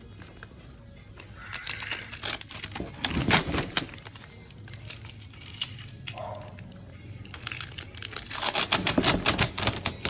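Plastic crinkling, rustling and irregular clicking as plastic bird spike strips and their packaging are handled, getting busier in the last couple of seconds.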